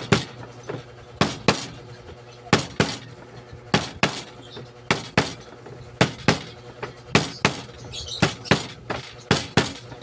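Sharp knocks of a hand tool tapping the copper windings of an alternator stator being rewound, in quick pairs a little over once a second.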